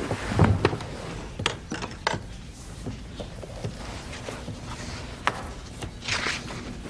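Pages of a thick old book and loose papers being handled and turned on a wooden table: paper rustling with a few light knocks, and a longer rustle near the end.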